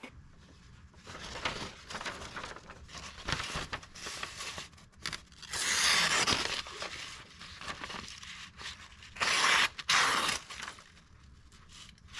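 Freshly sharpened Kershaw pocket knife slicing through a sheet of paper in a sharpness test: a series of cutting strokes with paper rustling, the two loudest and longest slices about six and ten seconds in.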